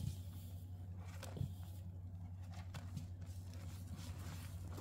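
Sponge soaked with Pinalen pine cleaner and dish soap being squeezed by hand: quiet wet squishes, with a soft click at the start and another about a second and a half in, over a steady low hum.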